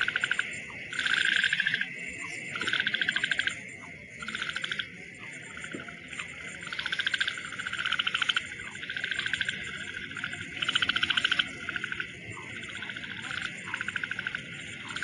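Night-time chorus of calling insects and frogs: rapid pulsed trills in short bursts that repeat every second or so, over a faint steady hiss.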